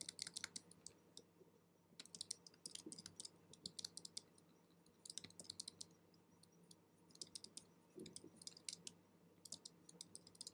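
Faint clusters of quick, light clicks and taps from computer input, in several short runs with brief pauses between them.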